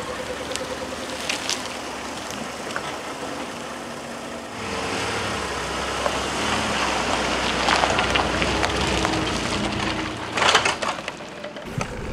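Pickup truck engine running at a boat ramp, growing louder about halfway through, with a few sharp knocks near the end.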